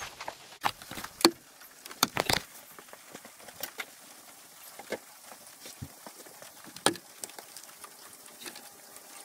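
Scattered light clicks and knocks of hands handling things around a minivan's engine bay, sharpest in the first couple of seconds and once near seven seconds; near the end the cap comes off a plastic coolant jug.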